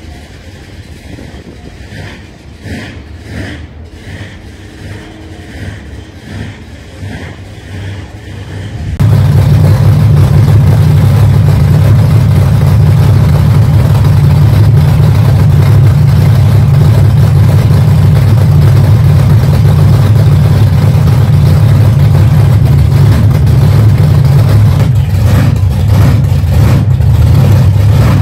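Monster truck engine running very loud and steady, starting abruptly about a third of the way in after a quieter stretch of faint background noise.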